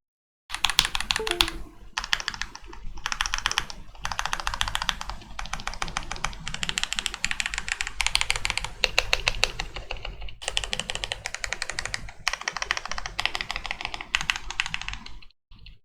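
Fast typing on a KBD67 Lite R3 mechanical keyboard with stock Akko Jelly Black linear switches: a dense stream of keystroke clacks with a few brief pauses between runs.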